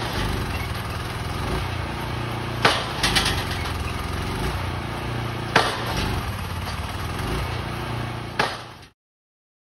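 Pile driver on a barge driving a piling: its engine runs steadily while the hammer strikes three times, roughly every three seconds, with a few smaller knocks after the first strike. The sound cuts off suddenly near the end.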